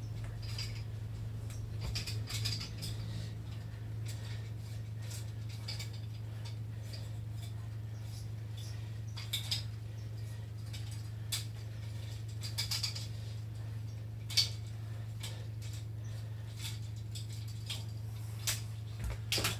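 Plastic keys of a keyboard being handled and cleaned: scattered light clicks and brief rubbing, with a sharper click about two-thirds of the way through, over a steady low hum.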